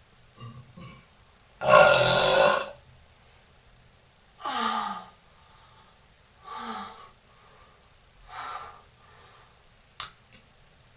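A woman burping four times. The first burp is the longest and loudest, lasting about a second, and the next three are shorter and fainter.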